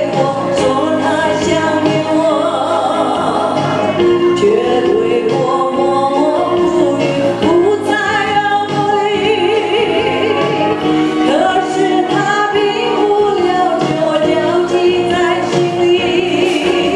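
A woman singing a Burmese song into a handheld microphone over instrumental accompaniment.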